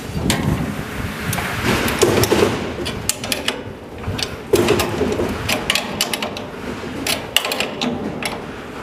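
Open-end spanner clinking against the steel nuts and bolts of an elevator landing door's hanger as they are tightened: a run of sharp, irregular metallic clicks, several a second. Two brief low tones come at about two seconds and four and a half seconds in.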